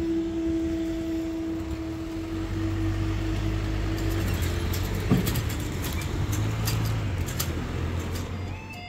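Road vehicle engines running, with a steady hum that fades out about four seconds in and a single knock about five seconds in.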